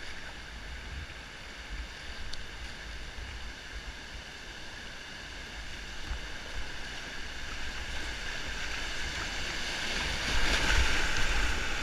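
River water rushing around a whitewater kayak, with a low rumble of water and wind on the microphone. It grows louder as the kayak drops into a foaming rapid near the end.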